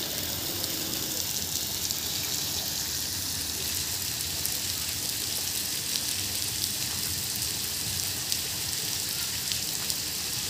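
Steady rain falling, a continuous hiss with scattered small ticks of drops landing.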